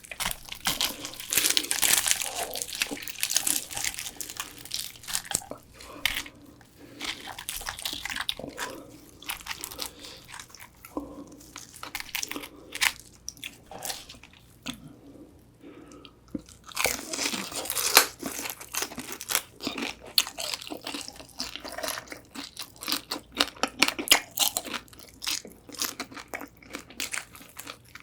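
Close-miked crunching and chewing of crisp Korean-style fried whole chicken, bite after bite of crackly fried skin. The crunching thins out to quieter chewing through the middle, then picks up again, dense and loud, for the last ten seconds.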